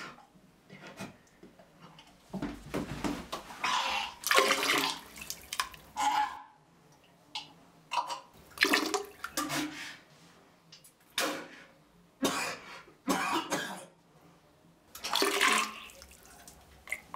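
A man retching and vomiting into a toilet bowl: about eight separate heaves and coughs, some long and some short, with quiet gaps between them.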